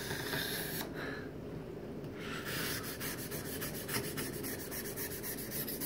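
Razor-blade scraper rasping across a granite countertop edge, shaving off built-up hard water deposits. It goes quieter for a moment about a second in, then continues in many quick short strokes.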